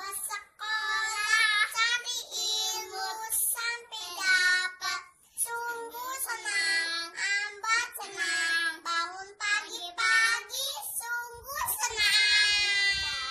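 Two young children singing a song together without accompaniment, in short phrases with brief pauses between them.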